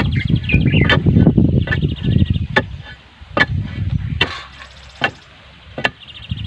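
Dry, stony soil being tamped down around a wooden fence post with a metal bar: repeated heavy thuds and crunching, with sharp knocks every second or so, easing off about halfway through. Birds chirp in the background.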